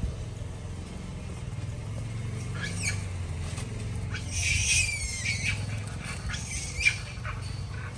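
Macaques squealing in high-pitched cries: a short pair about three seconds in, then a longer run of cries with a falling glide around four to five seconds, and one sharp, loudest cry near seven seconds. A low steady hum runs underneath.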